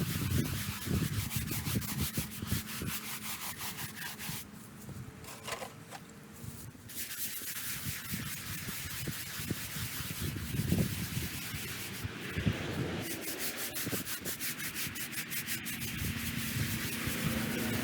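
A stiff brush scrubbing a wet gravestone surface in rapid back-and-forth strokes, with a couple of brief pauses.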